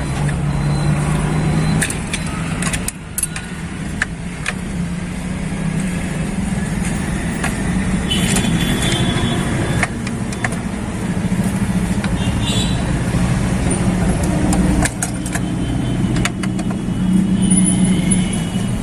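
Steady hum of a motor vehicle engine running, with scattered sharp metal clicks and clinks of hand tools.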